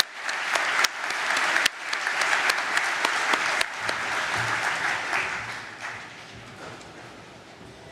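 Audience applauding, with many people clapping, full for about five seconds and then dying away.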